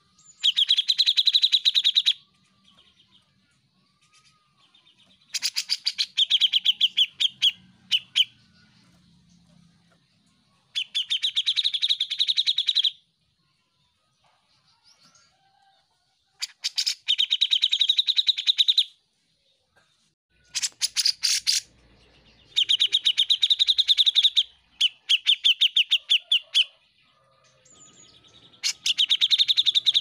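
Cucak jenggot (grey-cheeked bulbul) singing in loud bursts of rapid, chattering repeated notes, each burst about two seconds long, repeated every few seconds with faint calls between.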